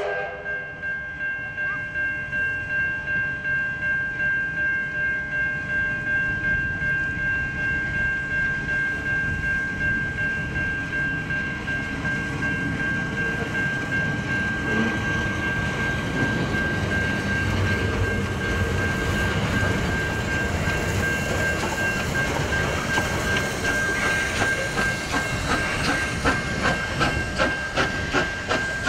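Level-crossing bells ringing steadily, pulsing about twice a second, while a steam train rolls past over the crossing; over the last few seconds quickening beats of the steam locomotive working away come in, and the bells stop at the very end as the crossing clears.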